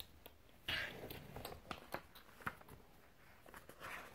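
Faint rustling and light clicks of paper pages being handled and turned in a spiral-bound journal, with a short rustle just under a second in and another near the end.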